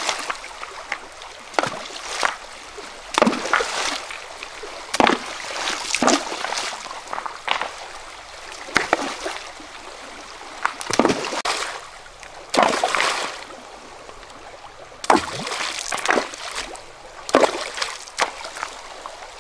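Repeated splashes in shallow river water, coming every second or two, over the steady rush of the stream.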